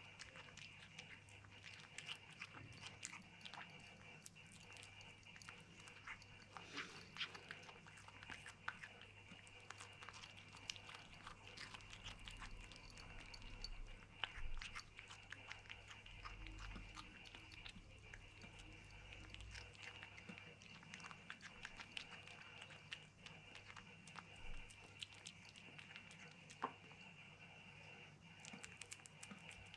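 Kitten chewing and licking a piece of melon: faint, quick wet clicks and smacks, over and over.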